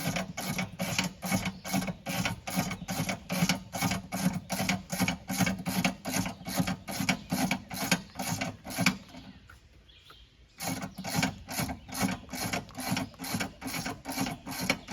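Car jack being worked to lift a car, a fast, even run of short rasping strokes, about three or four a second, that stops for a moment about two-thirds of the way through and then resumes.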